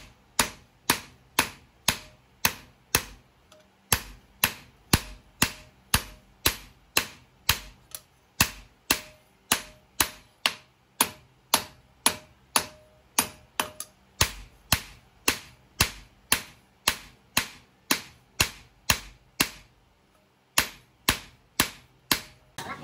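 Hand hammer blows on steel being forged, a steady run of about two to three strikes a second, each with a short metallic ring, with brief pauses about four seconds in and again near the end.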